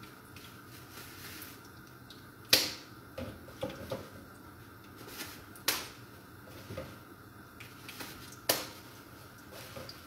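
Occasional sharp clicks and light knocks, the three loudest about three seconds apart, over a faint steady background hum.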